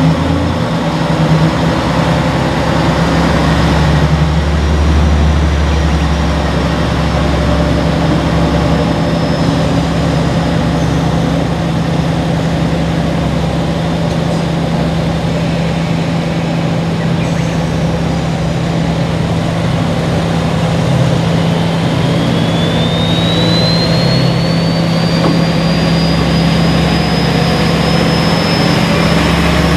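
JR Kyushu KiHa 40-series diesel railcar engine running with a steady low drone. In the last third a whine rises steadily in pitch.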